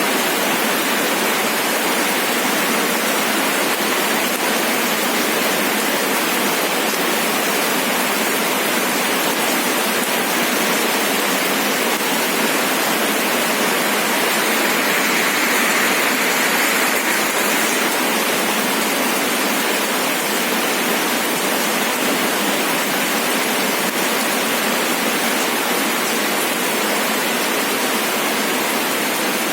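Steady rain, an even hiss with no single drops standing out, swelling slightly about halfway through.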